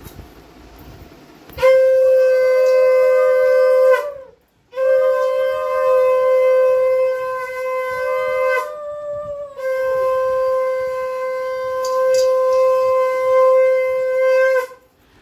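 Conch shell (shankha) blown in three long, steady blasts with short breaths between them, the last the longest.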